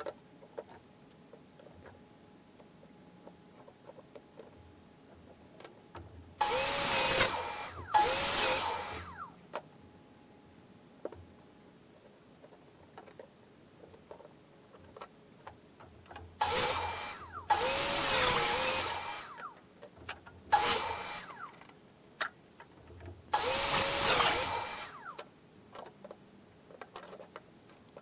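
Hand-held power drill run in six short bursts of one to two seconds, each spinning up and winding down, roughly in three pairs. Light knocks and clicks of wood pieces being handled in between.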